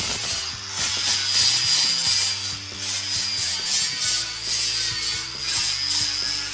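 Angle grinder grinding the edges of plasma-cut steel plate, taking off slag and rough spots. It works in short repeated passes, with the grinding hiss rising and dropping every half-second to a second.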